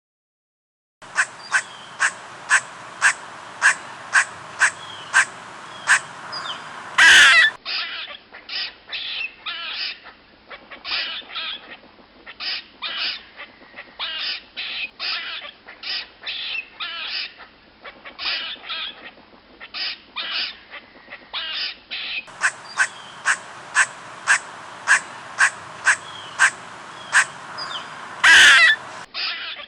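Squirrel alarm calls: sharp, repeated barks about two a second with a louder harsh burst, then faster, irregular chatter. The sequence repeats about 22 seconds in.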